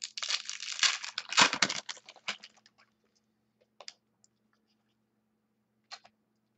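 Trading cards in clear plastic holders being handled, shuffled and slid against each other: a dense rustle and scrape for about two and a half seconds, then a few single clicks.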